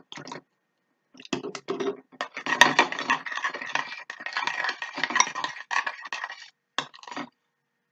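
A metal spoon stirring thick, clumping glue-and-borax slime in a glass bowl, scraping and clinking against the glass in stop-start strokes. The stirring picks up about a second in and stops shortly before the end.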